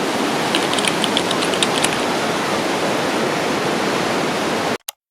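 Waterfall: a steady, even rush of falling water that starts and stops abruptly, with a few faint high chirps over it in the first two seconds.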